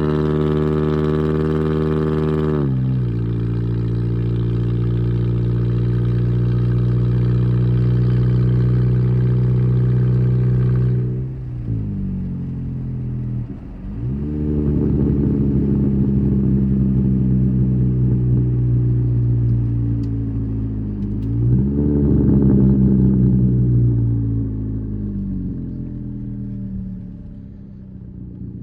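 2008 Pontiac Vibe's 1.8 L four-cylinder running loud and raspy through a straight-piped side-exit exhaust with no catalytic converters, resonator or muffler, while the car is driven. The engine pitch drops as it shifts up about two seconds in and holds steady. It then falls and climbs again twice as the car slows and pulls away, and eases off near the end.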